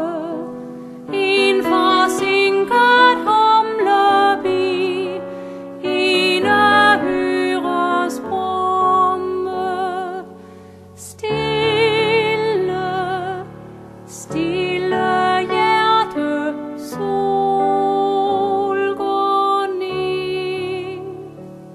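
A woman singing a Danish song with vibrato on long held notes over instrumental accompaniment, the phrases separated by short breaks.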